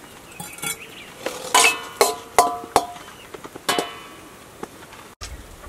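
Metal utensils clinking and scraping against a metal pot and bowls as cooked rice is dished out. There are several sharp, ringing clinks, most of them between about one and four seconds in.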